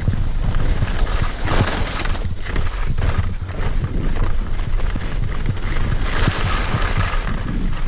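Skis sliding and scraping over firm, chopped-up snow in an uneven, irregular rasp, with wind buffeting the microphone.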